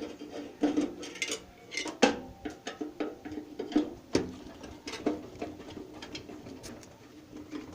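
Metal clicks, clinks and knocks of a microwave oven being taken apart with a screwdriver, loosening and lifting out metal parts; the two sharpest clanks come about two seconds and about four seconds in.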